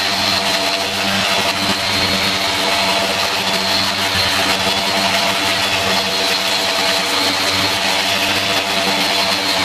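Electric detail sanders running steadily against a plastic motorcycle fairing, levelling cured thin CA glue into the paint with a continuous motor drone.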